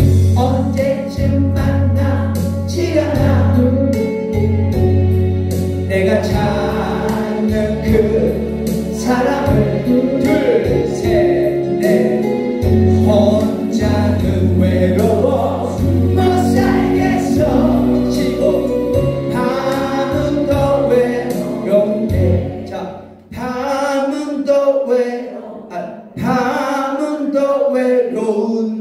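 A group of voices singing a song together in unison over a backing track with a strong bass line. About 22 seconds in, the backing drops away and the voices carry on alone.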